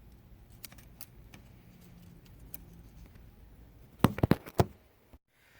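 Small tools or parts handled at a workbench: faint scattered metallic clicks and taps, then a quick run of four or five louder clacks about four seconds in.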